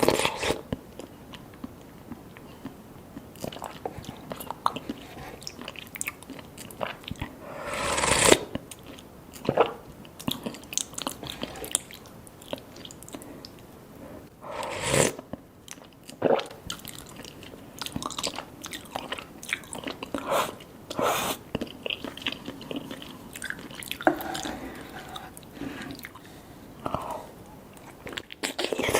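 Close-miked eating of cheesy spicy Korean noodles: chewing with small wet smacks and clicks throughout, and two louder, longer rushing sounds about eight and fifteen seconds in.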